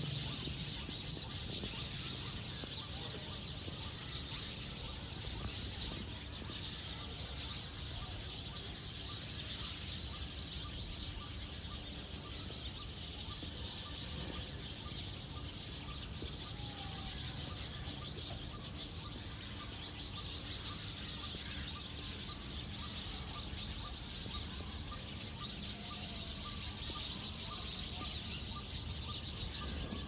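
Outdoor nature ambience: birds chirping in a steady, dense high chorus, with a faint repeated call and a low rumble underneath.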